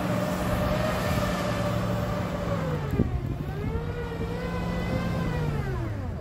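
Tow truck's engine revving hard and held high while its wheels spin in deep snow, the truck stuck. The revs drop about halfway through, climb back up, then fall away near the end.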